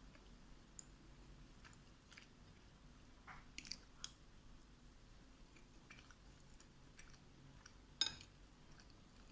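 Close-miked eating of creamy chickpea pasta: faint, sticky mouth and chewing sounds with scattered small clicks, and one sharper click about eight seconds in.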